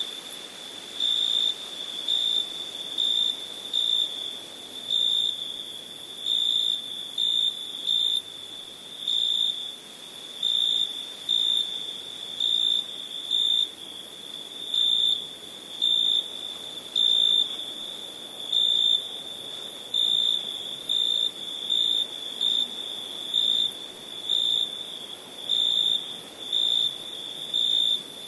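Crickets chirping, short high-pitched chirps repeating about once a second, over a steady high-pitched insect drone.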